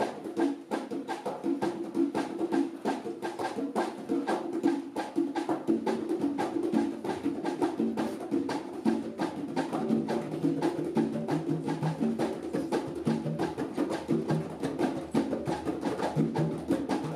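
Congas played by hand in a fast, steady rhythm: many sharp strokes and ringing tones moving between several drums.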